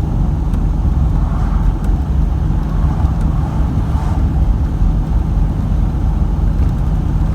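Motor vehicle running with a steady low rumble of engine and road noise.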